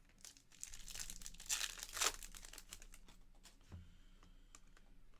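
Foil wrapper of a Panini Flux trading-card pack being torn open and crinkled for about two seconds, followed by a few light clicks of cards being handled.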